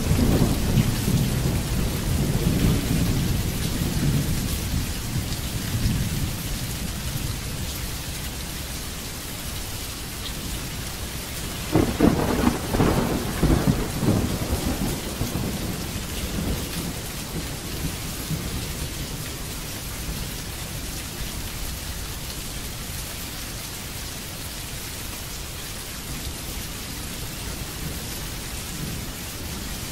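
Steady heavy rain falling on a wet surface, with thunder rumbling at the start and dying away over several seconds. A second, sharper crack of thunder comes about twelve seconds in and rolls off.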